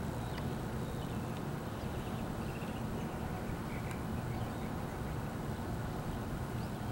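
Steady low outdoor rumble with a few faint bird chirps.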